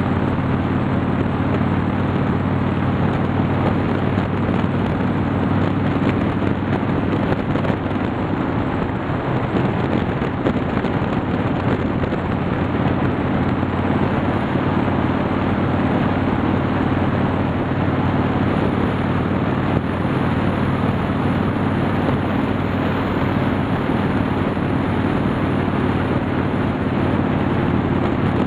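Harley-Davidson Softail V-twin engine running at a steady cruising speed, its low engine note holding level, under heavy wind and road noise on the camera.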